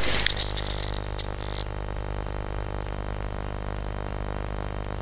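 FPV foam plane coming to rest in long grass after crashing: the rustle and clatter of the impact dies away in the first second, with a few small clicks, leaving a steady electrical buzz from the plane's onboard electronics picked up through its camera.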